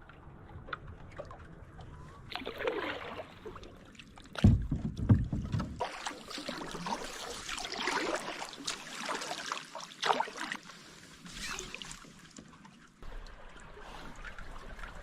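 Kayak paddling through ice-strewn water: paddle strokes and splashing with small clicks, and a heavy low thump about four and a half seconds in.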